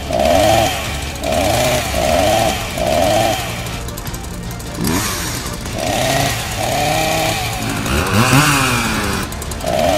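Electronic lightsaber and chainsaw sound effects from the sparring weapons: a steady low saber hum with rising-and-falling swing sweeps about once a second, over short blasts of a revving chainsaw buzz. A louder, denser burst comes near the end.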